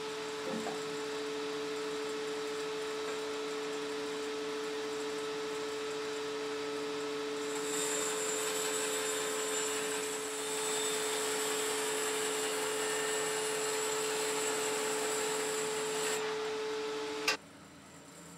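Bandsaw running with a steady hum as it rough-rips reclaimed black walnut boards; from about eight seconds in the blade cuts through the wood, adding a hiss for some eight seconds. Near the end a sharp click, and the hum stops.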